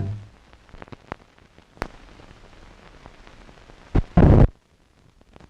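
Organ music cuts off at the start, leaving the faint hiss of an old film soundtrack with scattered clicks and pops. About four seconds in come a sharp pop and a short, loud crackling burst.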